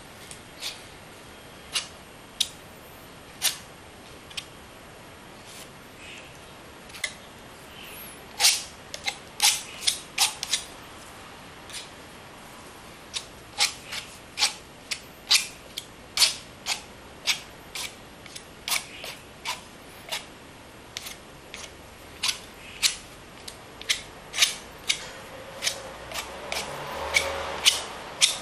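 Metal palette knife dabbing and tapping thick acrylic paint onto canvas: sharp, irregular clicks, one to three a second and uneven in loudness, with a denser run of loud ones about eight to eleven seconds in. Near the end the knife scrapes across the canvas, a rising rasp under the clicks.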